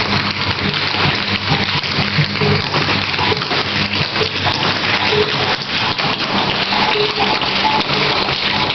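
Many tap shoes clattering on a hardwood floor as a group dances in unison, a dense continuous patter of sharp metal taps.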